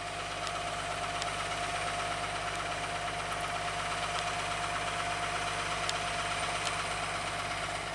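Steady mechanical hum of a city bus and a streetcar moving slowly at a streetcar loop: a constant whining tone over a low drone, with a few faint clicks.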